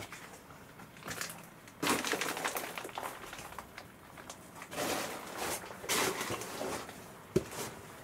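Crunching, scraping footsteps on a gritty, debris-strewn floor, in several noisy bursts, with one sharp knock near the end.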